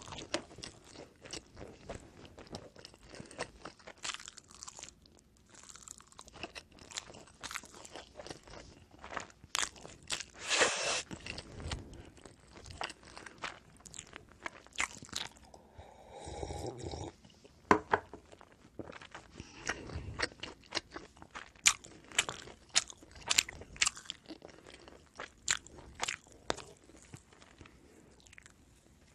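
Close-up eating of oven-baked pizza bread: crunchy bites and chewing, with many short sharp mouth clicks and a few louder crunches.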